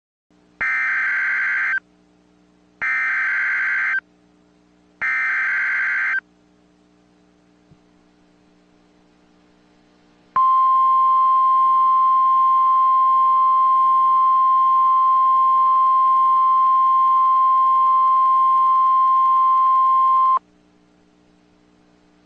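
Emergency Alert System SAME header: three identical bursts of screeching digital data tones, each about a second long and a second apart. A few seconds later comes the National Weather Service 1050 Hz alert tone, one steady high beep held for about ten seconds before it cuts off.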